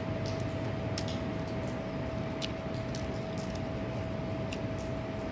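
Steady background hum with a constant tone, like a fan or air-conditioning unit, with a few faint clicks and taps from eating with the fingers off a foil-lined plate.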